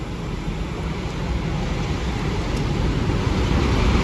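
Two Class 50 diesel locomotives, led by 50008 Thunderer with its English Electric 16-cylinder engine, approaching at the head of a train. The deep engine rumble grows steadily louder as they near.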